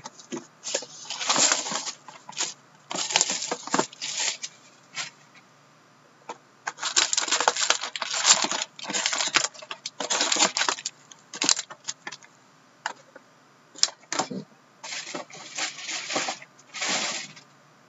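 Shrink-wrap plastic crinkling and tearing as it is stripped off a sealed box of hockey trading cards, then the cardboard box opened and card packs lifted out. A run of irregular rustling bursts with short pauses.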